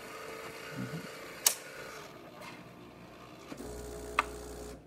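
Saeco Incanto Rapid Steam super-automatic espresso machine running through a test cycle. It makes a steady mechanical whine with two sharp clicks, then a deeper hum that starts near the end and cuts off suddenly.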